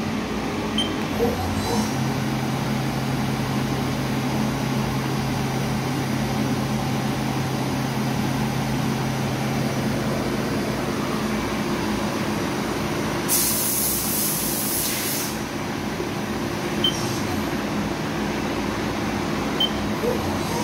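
Haas VF-2 CNC vertical mill running a program: a steady machine hum, with a low steady tone through the first half. About two-thirds of the way through comes a sharp hiss of air lasting about two seconds.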